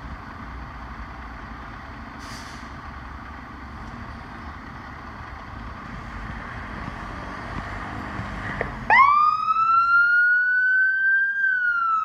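A fire engine's motor runs as the truck pulls out of its bay. About nine seconds in, its siren comes on, sweeping quickly up in pitch and then wailing higher, and it starts to fall near the end.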